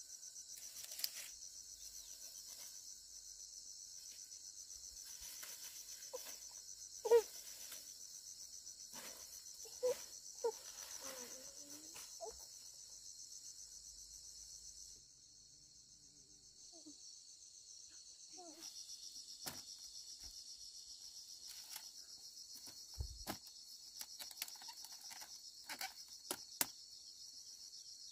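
Steady, high-pitched chorus of insects, which drops away briefly about halfway through and then resumes. Scattered short knocks and clicks sit over it, the loudest about seven seconds in.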